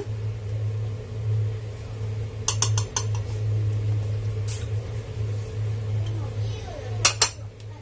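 Light clinks of a metal spoon and a sauce bottle against a small bowl as oyster sauce is poured and spooned out. A quick run of four or five clinks comes about two and a half seconds in, one more follows a couple of seconds later, and a sharper pair comes near the end, all over a steady low hum.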